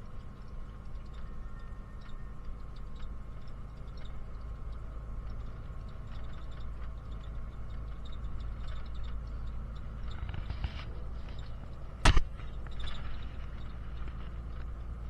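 Steady low rumble of a moving bus's engine and road noise heard from inside the passenger cabin, with faint ticks and rattles, and one sharp knock about twelve seconds in.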